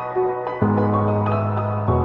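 Background music: soft ambient, new-age-style instrumental with sustained notes and a chord change about half a second in and another near the end.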